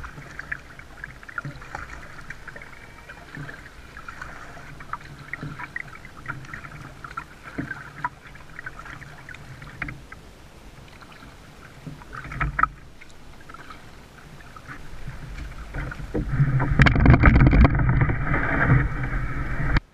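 Kayak on flat water, heard from a camera on the bow: light lapping and dripping of water against the hull with small ticks from the paddling. Near the end comes a much louder, deeper rumbling and scraping as the kayak is handled by its bow grab handle. It cuts off sharply.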